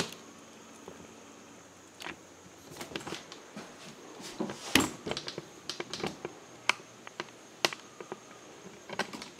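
Scattered soft clicks and knocks, handling noise and footsteps as the camera is carried back from the window, over a faint steady high-pitched tone.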